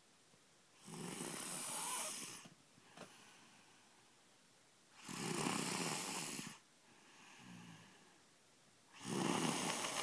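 A young girl snoring loudly in her sleep: three long snores about four seconds apart, each lasting about a second and a half, with a softer breath between the second and third.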